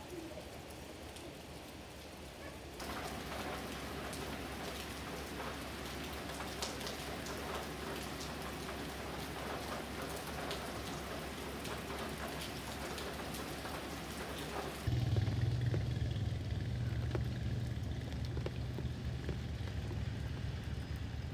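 Rain falling steadily, an even hiss with many individual drops ticking, heavier from about three seconds in. About fifteen seconds in the hiss thins out and a louder, steady low rumble takes over.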